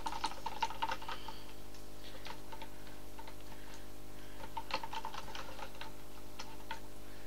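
Small whisk stirring a melted conditioner mixture in a plastic measuring jug, its wires clicking lightly against the jug in short runs of ticks, most in the first second and again about five seconds in.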